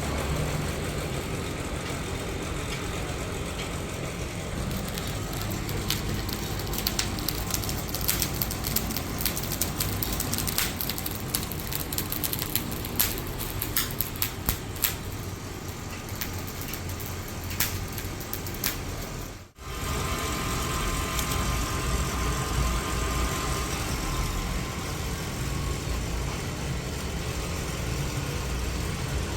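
A steady engine-like rumble, with a run of sharp clicks in the middle and a brief break a little past halfway.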